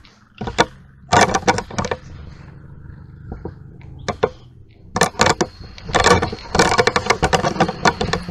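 Footsteps crunching through grass and twigs close to the camera, with handling noise: clusters of sharp crackles about a second in, again around four seconds, and more densely from about five seconds on.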